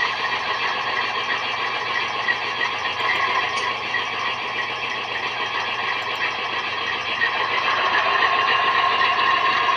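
Model locomotive's QSI Titan-A sound decoder playing a recorded ALCO 244 diesel engine through its small on-board speakers: a steady, even engine pulse that grows louder about seven to eight seconds in.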